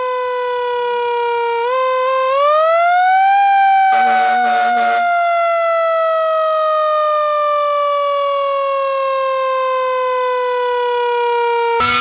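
A siren sounding one long, slow wail: it dips, climbs about two seconds in, then falls slowly for about eight seconds. A short air horn blast sounds about four seconds in, and a second siren starts winding up right at the end.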